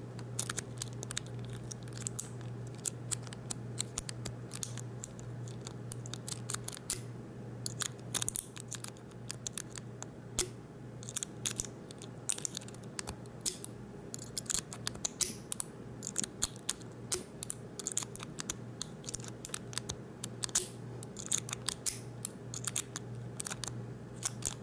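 Metal rake pick being scraped and jiggled in the keyway of a Master Lock No. 5 laminated steel padlock, raking its pin tumblers: fast, irregular metallic clicks and scratches, over a steady low hum.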